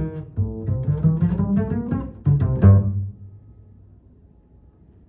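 Double bass playing a quick passage of low notes, ending about three seconds in on a strong low note that rings and dies away, leaving quiet room tone.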